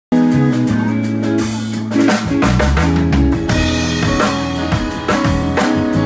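Live band playing, starting abruptly: a drum kit with bass drum and snare hits under electric guitars and keyboard.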